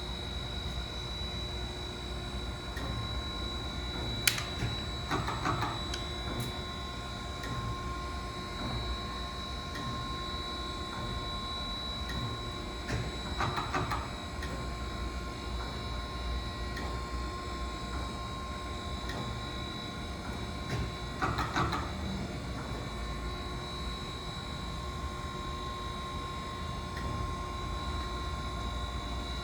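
Chevalier FSG-3A818 automatic surface grinder running: a steady hum with a constant high whine, broken by a short burst of noise about every eight seconds. A sharp click about four seconds in.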